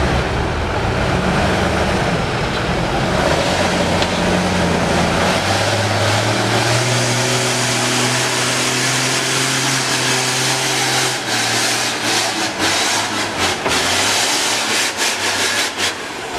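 Heavy tanker truck's diesel engine pulling slowly through mud, its note rising about a third of the way in, holding, then easing off past the middle. A run of short sharp noises follows near the end.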